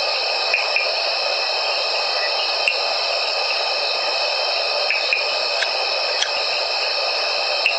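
Evening African bush ambience: a steady, dense chorus of calling insects, with a few faint short chirps scattered through it.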